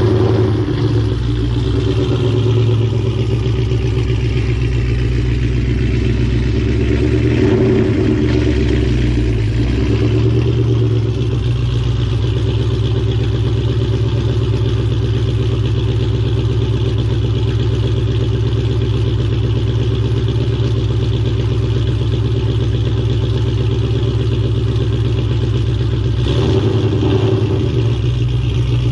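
Ford Mustang engine running through a Borla ATAK cat-back exhaust, a steady low drone that swells briefly in pitch about a quarter of the way in and again near the end.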